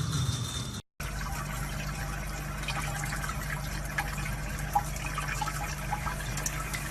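Water trickling with many small splashy ticks over a steady low hum.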